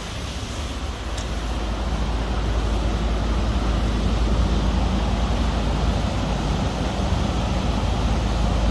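Steady rushing noise with a heavy low rumble, growing a little louder over the first few seconds.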